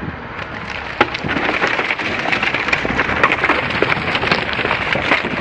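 A Chery Tiggo's tyres rolling over loose boards, slats and wood debris: a dense, irregular clatter of wood cracking and splintering under the wheels, with one loud crack about a second in.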